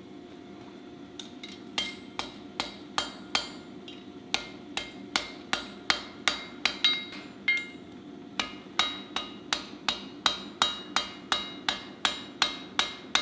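Blacksmith's hammer striking hot steel on an anvil, starting about two seconds in: a run of ringing blows, about two to three a second, with a short pause midway. This is the hammering that sets a forge weld.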